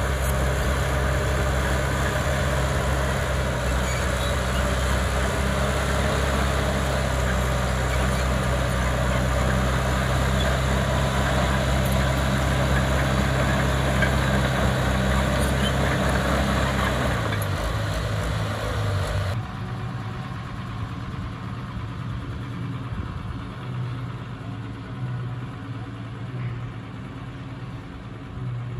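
Heavy-equipment diesel engines running steadily, a low engine hum with a wide rush of noise over it. About 19 seconds in the sound drops suddenly to a quieter engine run.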